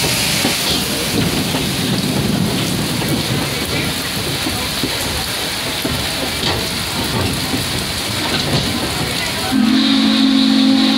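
Heavy rain pouring on the coach roof and platform of a moving passenger train. Near the end, the steam locomotive's whistle starts a long, loud, low chime-like blast.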